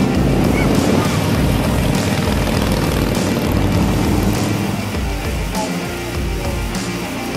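Rock music with a steady beat, over the steady drone of motorcycle engines riding.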